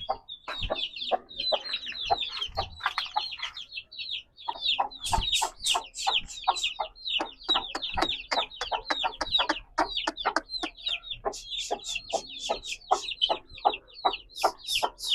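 A brood of young chicks peeping continuously, a dense stream of short, high, falling cheeps several a second, with a mother hen clucking among them.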